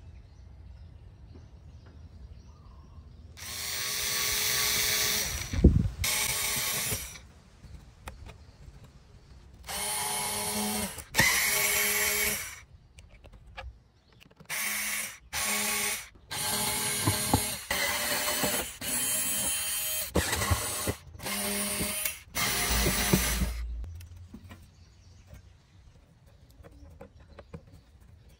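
Cordless electric screwdriver whirring in about ten separate runs, backing screws out of the steel casing of a rusted car amplifier. The runs stop a few seconds before the end.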